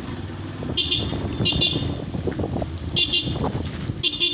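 Motorcycle running along a road with steady engine and wind noise, while a high-pitched warning signal sounds four times in short bursts, each with a fast flutter.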